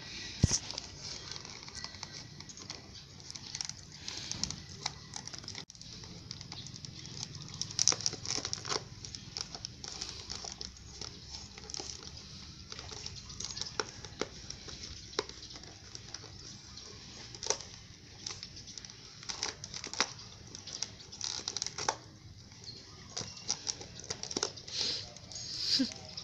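Dog chewing and biting an empty instant-noodle cup: irregular crackling, crinkling and tearing of the cup, with sharp clicks scattered throughout.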